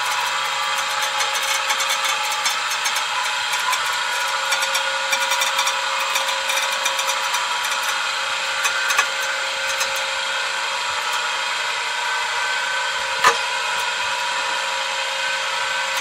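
Electric drive motor and cable winder of a Swinger (Tide Tamer) jet-ski lift running steadily as it winds the cable and raises the personal watercraft, a steady whine of several tones with light crackling ticks. One sharp click about thirteen seconds in.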